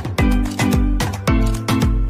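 Background music with a steady beat, about two strong hits a second over a bass line.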